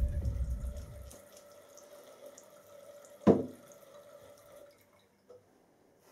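Faint bathroom tap running into a sink basin, with one sharp clunk a little over three seconds in and a small tick near the end. A low rumble fades out in the first second.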